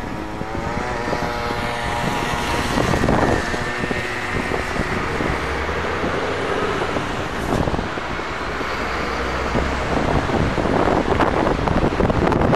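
A vehicle passing unseen near the crossing, with a whine that rises over the first few seconds, then steady running noise. Wind buffets the microphone.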